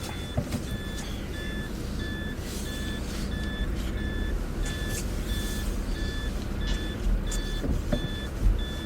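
Vehicle engine and road rumble under a steady electronic warning beep repeating about one and a half times a second, with a few knocks and a heavier thump near the end.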